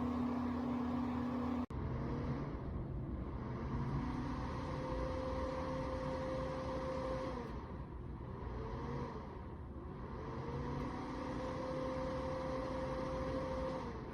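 Comfort Zone CZFP1 mini fireplace heater's fan motor repeatedly spinning down and back up, its hum falling away and rising again about four times: the heater keeps shutting off and restarting within seconds. Before this, a steady hum cuts off abruptly about two seconds in.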